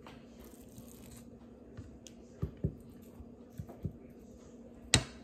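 A plastic spoon scooping ground chicken and pork filling in a bowl: soft squishing with a few dull taps in the middle, then one sharp knock near the end, the loudest sound.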